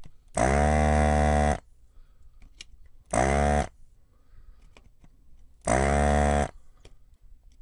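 Hakko desoldering gun's built-in vacuum pump buzzing in three bursts at a steady pitch, the first about a second long and two shorter ones after it. Each burst is a trigger pull sucking molten solder off a capacitor's leads on a circuit board.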